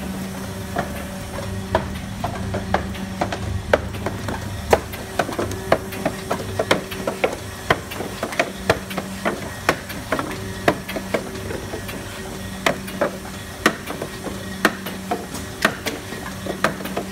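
Vertical cartoning machine running: a steady hum with frequent sharp mechanical clacks, about one or two a second and uneven in strength, as its parts work on the cartons.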